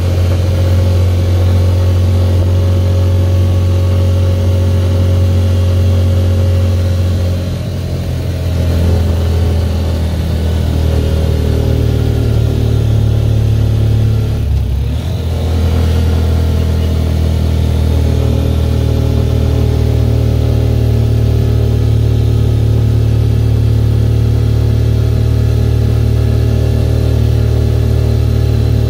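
Motorcycle engine of a tricycle (motorcycle with sidecar) running steadily under way. The engine note dips and changes pitch twice, about a quarter of the way in and again about halfway through.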